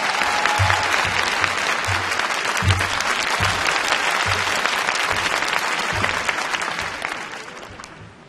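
Arena crowd applauding, with a low beat pulsing underneath, the applause dying away near the end.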